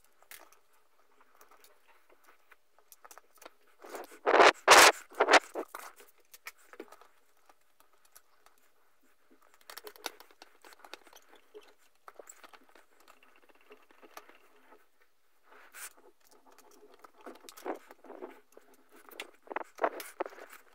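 Gloved hands working a braided steel brake line and its fittings into place on a motorcycle: scattered scraping, rustling and small clicks, with a louder scrape and knock about four seconds in.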